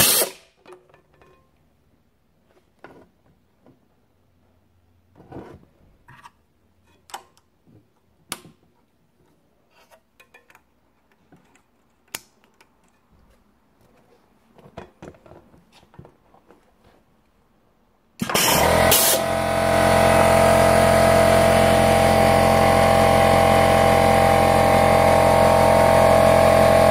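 Scattered light clicks and knocks as mats and grommet parts are handled at a grommet-attaching press. About 18 seconds in, a loud, steady machine hum with several constant tones starts abruptly and keeps running.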